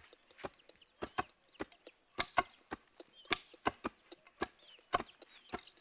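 A run of sharp strikes, about three a second in an uneven rhythm, with chickens clucking faintly.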